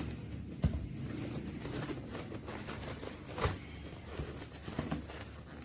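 Rustling and handling of a book package being opened, with short knocks about a second in and again a little past three seconds.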